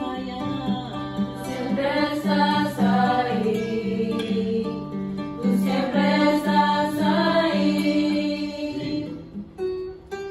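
A choir of young women singing a hymn in unison with an acoustic guitar strumming chords. The voices drop out about nine seconds in, leaving the guitar.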